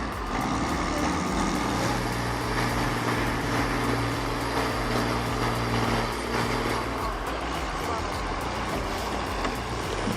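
Heavy machine's engine running steadily, a low hum over a wash of mechanical noise. The hum weakens about seven seconds in.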